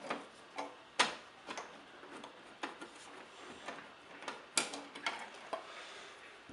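Scattered light clicks and taps of small hard parts and hand tools being handled at a wall switch, such as a switch cover plate, screws and a voltage tester. The sharpest clicks come about a second in and again near the middle.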